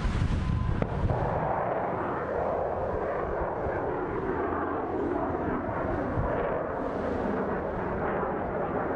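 Kalibr cruise missiles launching one after another from a warship, heard from a distance: the rocket boosters make a steady rushing noise that sets in about a second in and holds.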